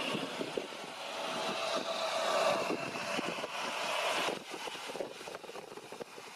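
Jet airliner's engines running, with strong wind buffeting the microphone throughout. The engine noise builds to its loudest about halfway through, then drops away sharply a little after four seconds in.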